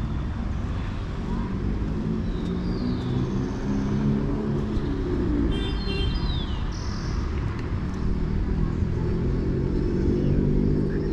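Street traffic running steadily as a low rumble, with a few short high chirps that fall in pitch.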